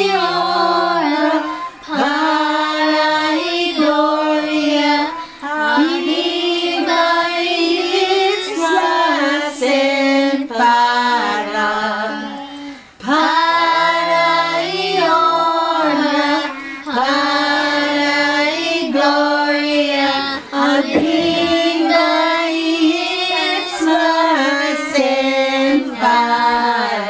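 A group of women's and children's voices singing together, held notes in phrases broken by brief pauses.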